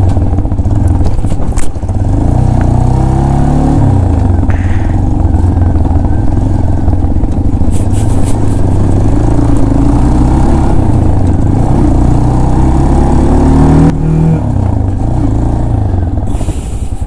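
Motorcycle engine running under way, its note rising and falling with the throttle, with a shift in pitch about fourteen seconds in.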